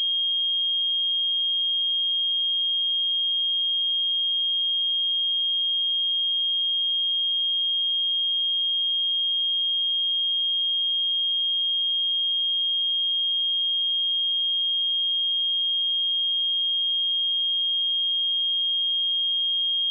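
A pure 3238 Hz sine-wave test tone, one steady high-pitched note held at a constant level.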